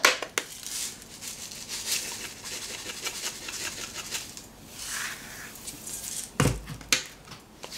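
Dried onion flakes rattling as a plastic spice jar is shaken out, with light taps and rustles. A dull thump about six and a half seconds in.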